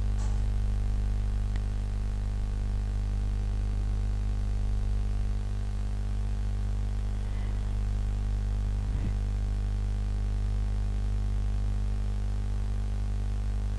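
Steady low electrical hum with a ladder of even overtones, with a few faint clicks, one near the start and one about nine seconds in.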